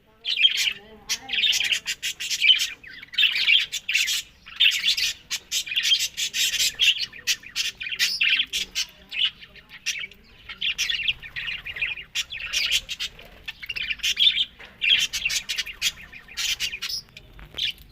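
Budgerigars chattering in a continuous warbling stream of quick chirps, clicks and short squawks.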